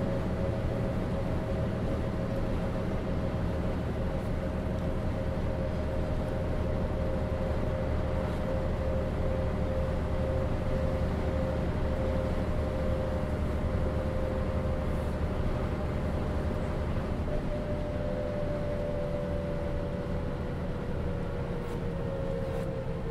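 Mercedes-Benz O407 bus heard from inside while under way: its diesel engine and drivetrain run steadily with a rumble and a whine. Past the middle the low rumble eases, and near the end the whine slowly falls in pitch as the revs drop.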